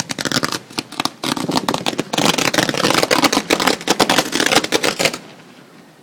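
Set-piece fireworks crackling in a rapid, dense string of sharp pops that stops abruptly about five seconds in.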